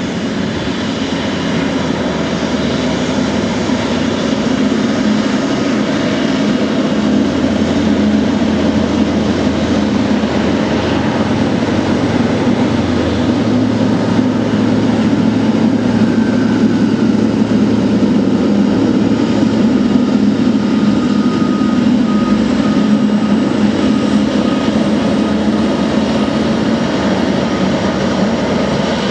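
Airbus A340-300's four CFM56 jet engines running at low power as the airliner rolls along the ground: a steady rushing drone that grows slowly louder over the first few seconds, with a faint thin whine in the second half.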